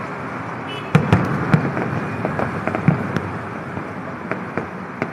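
Fireworks bursting overhead: a string of sharp, irregular bangs and cracks, the first loud ones about a second in, over a steady background noise.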